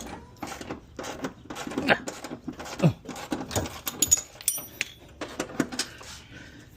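Hand tools working on the suspension bolts during a coilover install: a run of irregular metallic clicks and clanks as a wrench or ratchet is worked, with a brief high metallic ring about four and a half seconds in.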